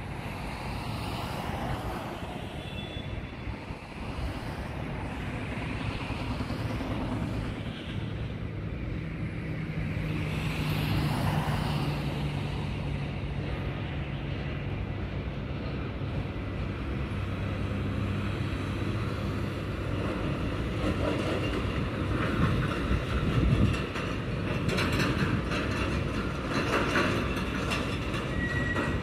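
Container freight train rolling past, its wagons making a steady rumble, with sharper clicking and clatter from the wheels in the last few seconds.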